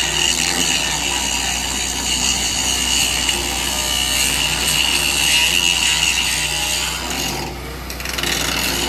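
Electric welding arc on a steel tank, a continuous hissing, crackling rasp over a steady low hum. It breaks off briefly about seven and a half seconds in, then starts again.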